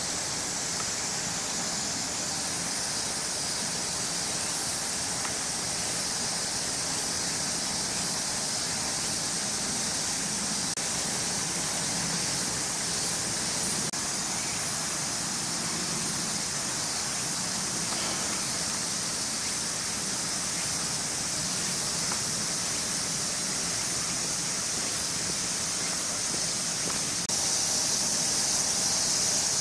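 Steady high-pitched drone of an insect chorus, growing louder and brighter near the end.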